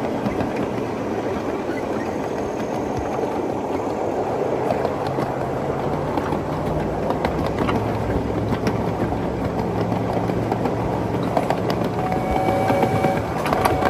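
A 1/8 scale coal-fired live steam train running along its track: a steady rumble of wheels on rail with scattered clicks. Near the end a whistle sounds a chord, a short blast and then a second one.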